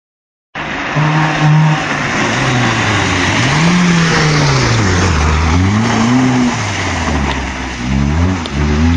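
Rally car engine at full throttle on a gravel stage, its revs climbing and dropping again and again with gear changes as the car passes, over a steady hiss of tyres on gravel. The sound cuts in abruptly about half a second in.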